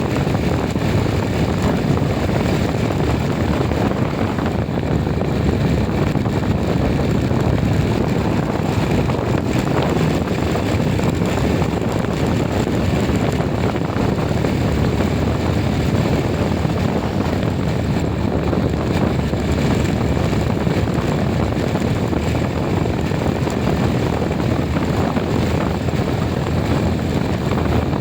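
Steady running noise of a moving vehicle, even and unbroken, with some wind on the microphone.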